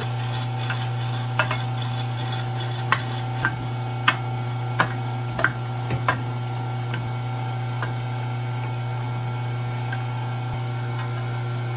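Electric meat grinder running with a steady low hum while grinding baked potato, which comes out through the grinder plate. About eight sharp clicks and knocks sound in the first half.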